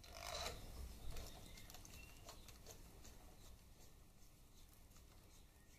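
Faint, irregular metal ticks and light scraping of a socket on a long extension running bolts in by hand through a chrome transmission side cover into the gearbox case, with a short rustle at the start and a sharper click about a second in.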